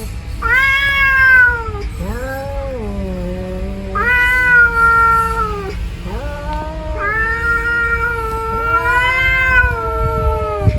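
Cats caterwauling in a fight standoff: long, drawn-out, wavering yowls that rise and fall in pitch. A lower yowl runs on continuously, while a higher one breaks in three times.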